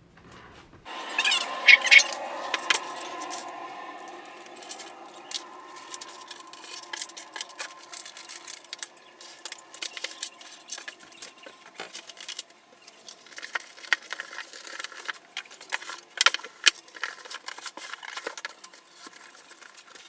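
Irregular small clicks and rattles, loudest a second or two in and again near the end, over a faint steady hum.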